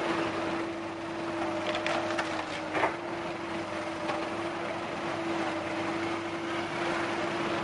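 Diesel engines of a dump truck and a Komatsu hydraulic excavator running with a steady hum, as the excavator bucket scrapes soil from the raised steel tipper bed. One sharp knock comes about three seconds in, with a few fainter knocks around it.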